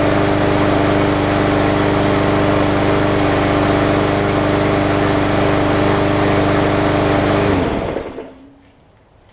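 Hyper Tough push mower's Briggs & Stratton OHV engine running steadily, having burned through the water left in its fuel. About seven and a half seconds in it is shut off and winds down quickly to a stop.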